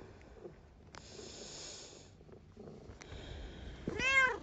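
Tabby-and-white cat breathing faintly against an arm, then one short meow near the end that rises and falls in pitch.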